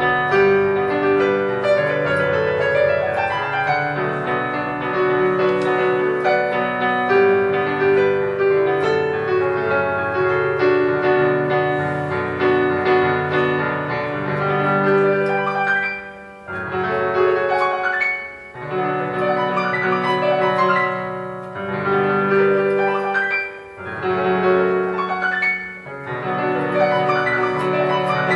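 Casio electronic keyboard played with both hands: sustained chords under a melody, with a few brief breaks between phrases in the second half.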